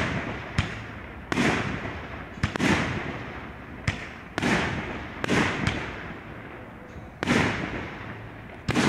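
Aerial firework shells bursting one after another, a sharp bang about every second, each trailing off in an echoing rumble.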